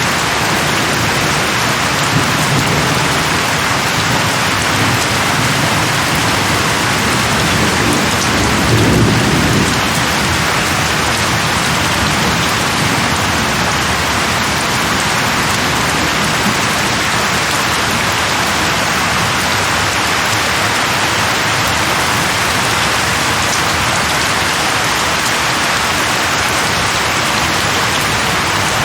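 Steady heavy rain falling on leaves, with low rolling thunder underneath that swells to its loudest about a third of the way in, then fades.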